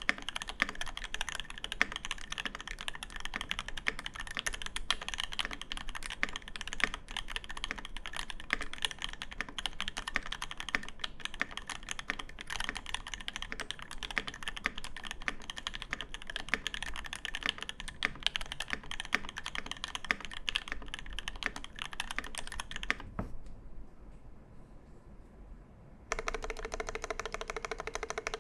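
Fast continuous typing on a TOFU96 mechanical keyboard with a brass plate, lubed C³ Tangerine 67g linear switches and GMK keycaps, as a run of quick key strokes. The typing stops about 23 seconds in and picks up again about three seconds later.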